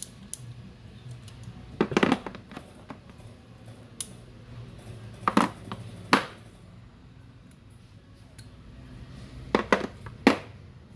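Metal hand tools from a socket set being handled and set down: a few separate sharp clacks and knocks, in clusters about two seconds in, around five to six seconds, and near the end, over a steady low hum.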